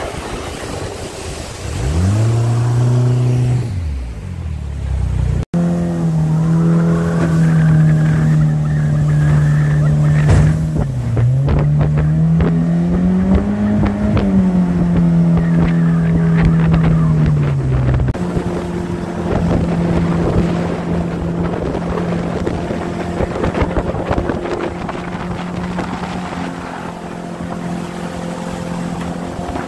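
Mercury 40 jet outboard running under way: it revs up with a rising pitch, then runs steadily, dipping and climbing again with the throttle. The sound changes abruptly twice where the footage is cut, with a hiss of water and wind beneath.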